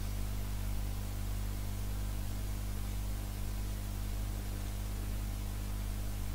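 Steady low hum with a constant hiss, unchanging throughout; no crackles, knocks or bubbling stand out.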